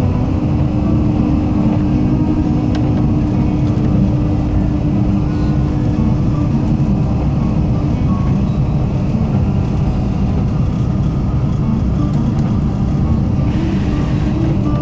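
Running noise of a train heard from inside the carriage: a steady rumble of wheels on rail with a constant low hum. A brighter hiss joins in near the end.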